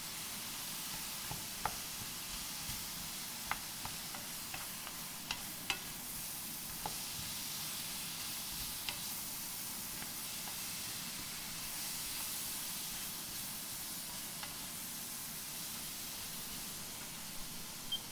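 Food stir-frying in a hot pan: a steady sizzling hiss with scattered sharp ticks, most of them in the first six seconds.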